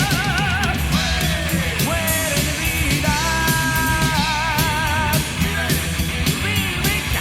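Heavy metal band playing: distorted electric guitars, bass and drums, with a high held note wavering with vibrato in the middle.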